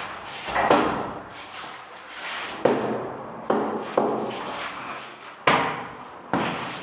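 Cabinet doors being shut several times in a row: about six sharp knocks, each fading quickly.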